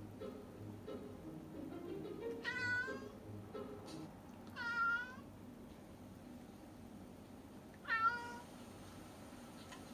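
Domestic cat meowing three times, short calls spaced a couple of seconds apart, the last one the loudest.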